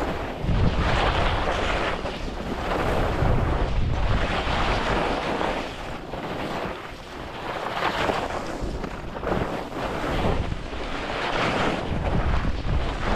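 Wind rushing over the GoPro microphone during a ski run, with skis hissing over the snow; the noise swells and fades in uneven surges.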